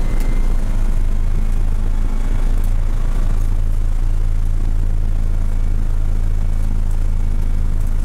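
BMW M235iR race car's turbocharged inline-six heard from inside the cockpit, running steadily under load at high speed, holding around 4,500 rpm in one gear.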